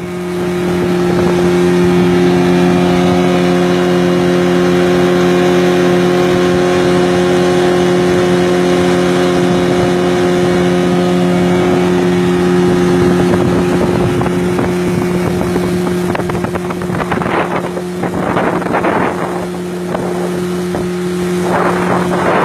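A 15 hp outboard motor running steadily at constant speed, pushing a small speedboat along. A few short noisy surges come over it near the end.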